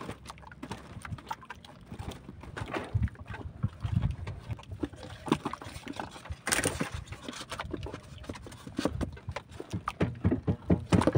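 Fishing net being gathered and piled by hand in a small boat: irregular taps, knocks and rustles, with a short hissing rustle about six and a half seconds in.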